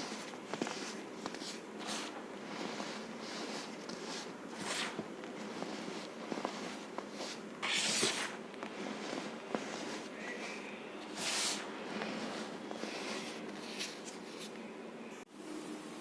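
Crunchy baking soda and cornstarch mixture being crushed, with a constant run of small crackles and squeaks and two louder crunches, about 8 and 11 seconds in.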